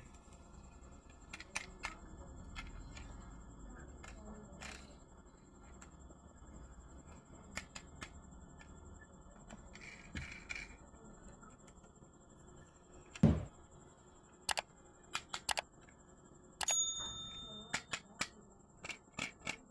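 Scattered small clicks and taps of a toy car and its packaging being handled, with one louder thump about two-thirds of the way through. A short high tone sounds near the end among more clicks.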